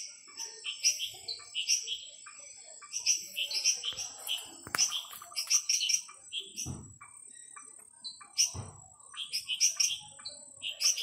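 Night chorus of frogs giving short, quick chirping calls in repeated clusters, over a steady high insect whine. Two low thumps come in the middle.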